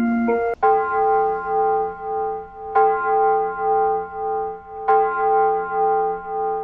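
Japanese municipal disaster-prevention radio chime on an outdoor loudspeaker system. The end of an electronic melody cuts off about half a second in, and an electronic bell tone takes over. The bell strikes the same note about every two seconds and rings on between strikes with a slow pulsing warble.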